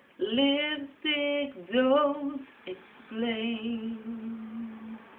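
A woman singing unaccompanied: three short sung notes, then a long held note with vibrato that fades away.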